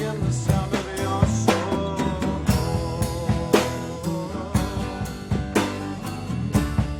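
Live rock band playing an instrumental passage: sustained pitched instrument notes over a steady drum-kit beat.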